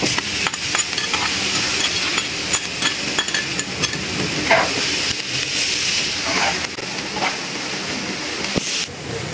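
Chopped onions and cabbage sizzling in oil in a frying pan, with a steady hiss. They are being stirred, and the cooking utensil makes frequent short clicks and scrapes against the pan.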